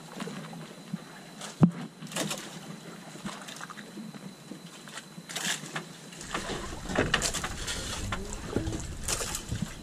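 Small fishing boat on choppy water: scattered knocks and clicks against the hull, the loudest a single sharp knock about a second and a half in. A low rumble comes in about six seconds in.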